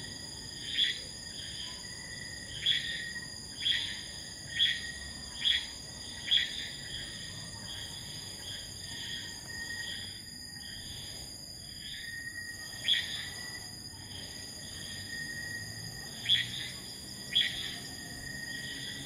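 Night insect chorus: a steady high-pitched trilling. Over it, an unseen animal gives short, loud calls, about one a second for the first several seconds, then a few more spaced out later.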